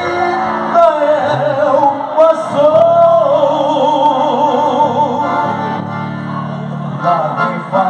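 Portuguese gospel song with instrumental backing; a voice holds one long note with heavy vibrato from about three seconds in until near the end.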